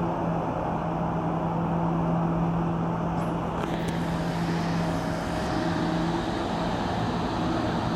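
Diesel engine of a long-reach excavator running with a steady hum as it works its boom, mixed with road traffic. The steady engine tone drops away about six seconds in, and a hiss joins about four seconds in.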